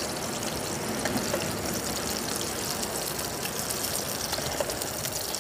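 A large prawn frying in coconut oil in a pan over a portable gas stove: a steady sizzle with scattered small crackles.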